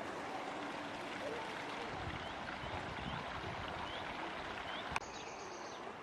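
Mountain stream flowing: a steady rush of water, with faint, high bird chirps over it. A sharp click about five seconds in, after which the water sounds slightly quieter.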